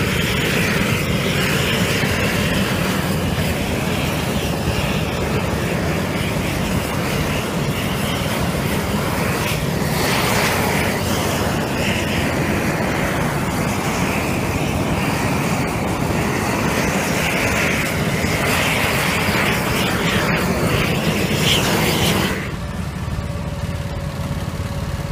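Propane heat torch and asphalt mixer burner running with a loud, steady rushing hiss over a low engine drone. Near the end the hiss cuts off suddenly, leaving the lower drone.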